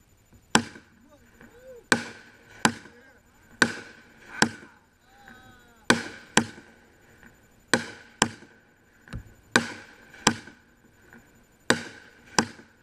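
Aerial fireworks going off: a run of about fourteen sharp bangs, often in pairs about half a second apart, each with a short echo.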